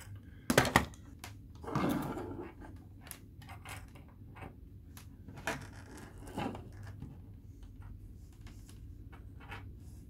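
Workbench handling noises: a couple of sharp knocks and clatter about half a second in, a short rustle around two seconds in, then scattered light clicks and taps as multimeter test probes are handled over a small circuit board.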